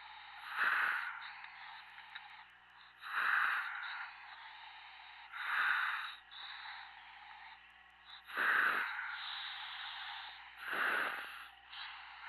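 A diver breathing through a helmet demand regulator, heard over the dive comms channel. There are five loud breaths about every two and a half seconds, with a steady hiss of gas between them.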